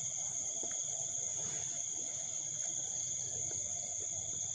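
Steady chorus of night insects: a continuous high-pitched trill at two pitches, unchanging throughout, with a few faint rustles of grass underneath.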